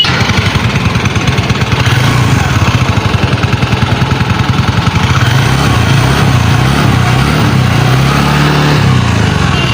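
Small two-wheeler engine running with a steady, fast pulsing beat, its speed rising and falling a little about eight seconds in.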